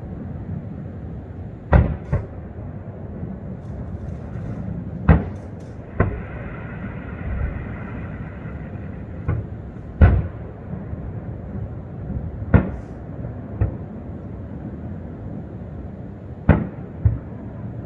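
Aerial firework shells bursting at a distance: about ten sharp bangs, one every one to three seconds, several followed by a second bang a fraction of a second later, over a steady low background noise.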